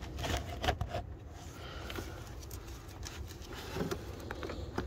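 Hands working a plastic electrical connector loose on the throttle body: a few small sharp clicks in the first second and another near the end, over a steady low hum.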